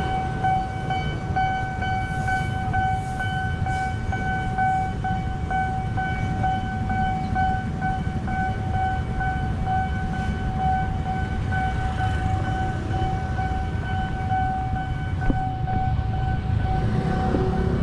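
A steady high-pitched electronic warning tone sounds without a break, over a low, dense rumble.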